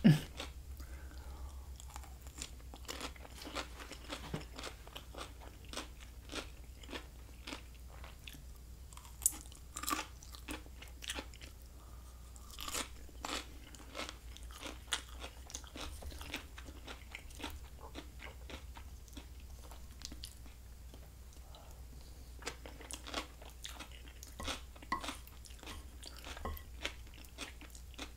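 Close-miked chewing of half-cooked, crispy green beans: a long run of irregular, crisp crunches and mouth clicks.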